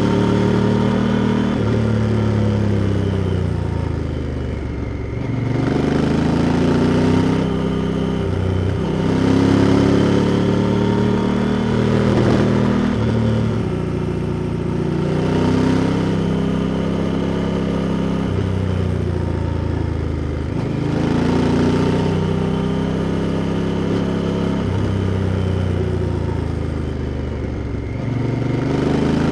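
Honda Africa Twin's parallel-twin engine under way, heard close from an engine microphone; its note drops and climbs again several times as the throttle is eased and reopened.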